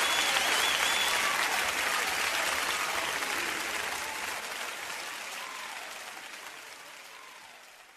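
Congregation applauding at the end of a live worship song, the applause fading out steadily.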